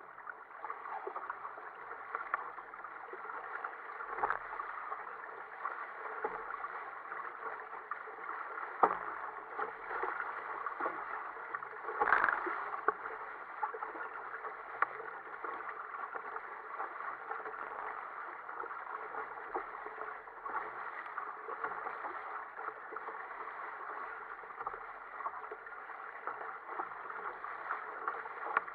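Water rushing and splashing along the hull of a sit-on-top sailing kayak moving fast through choppy sea. A few sharper slaps stand out, the loudest about twelve seconds in.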